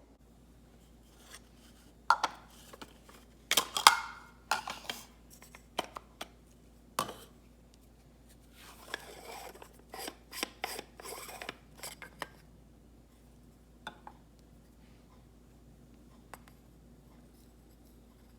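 Plastic parts of a portable espresso maker being handled and put together: a series of clicks, knocks and scraping rubs, clustered in the first twelve seconds, then only a few faint ticks.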